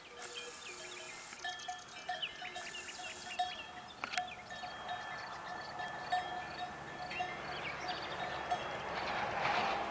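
Many small metal bells clinking irregularly at several different pitches. Two bursts of high hiss come in the first few seconds, a sharp click about four seconds in, and a swelling rush of noise near the end.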